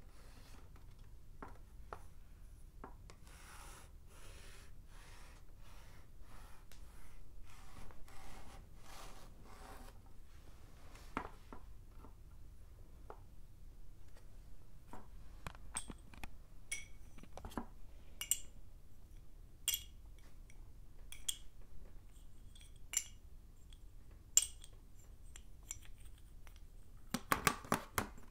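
Stick of chalk rubbed across a small chalkboard in repeated even strokes. After about ten seconds it gives way to sticks of chalk knocking together in separate sharp, high-ringing clicks, which come thick and fast near the end.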